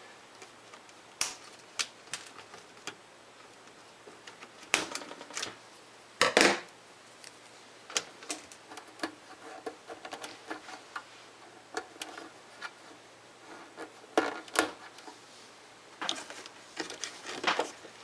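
Irregular sharp clicks and snaps of cutters snipping the plastic zip ties that hold a MIG welder's gas hose, with small handling taps between the cuts.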